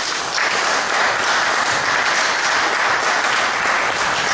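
An audience applauding: dense, steady clapping.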